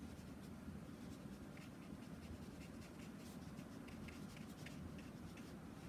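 Small round watercolour brush making quick short strokes on watercolour paper: faint, scratchy brushing ticks, several a second, over a low steady hum.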